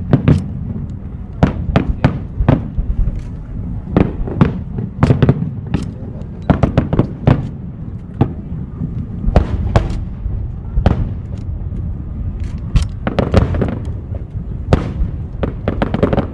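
Aerial fireworks bursting: a rapid, irregular string of sharp bangs, several a second at times, over a constant low rumble.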